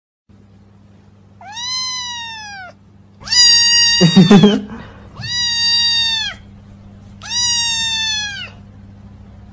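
White kitten meowing four times, long drawn-out high calls of about a second each; the first rises and then falls in pitch. A brief lower sound overlaps the second meow and is the loudest moment.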